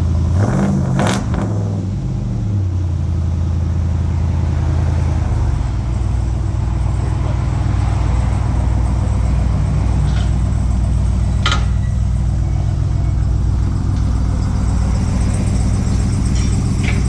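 Ram Power Wagon's 392 Hemi V8 running through a new custom dual exhaust with a steady low rumble. The engine note rises and falls about a second in, then settles lower around five seconds in. A few short clicks are heard.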